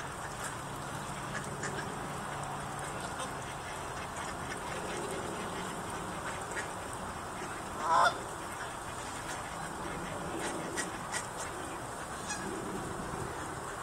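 A flock of Canada geese on the water calling: soft, low honks now and then, and one loud honk a little past the middle, over a steady background hiss.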